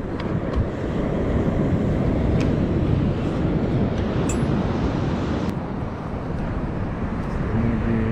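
Wind buffeting the microphone: a steady low rumble that swells and eases, with a few faint clicks.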